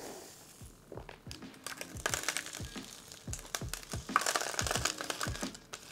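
Background music with a steady beat, over bursts of crinkling, rustling noise about two seconds in and again around four seconds in, as potting soil is packed by hand into a clear plastic grow pole.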